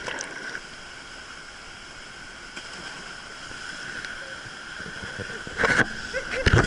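Steady rush of flowing water, with a cluster of louder splashes and knocks near the end.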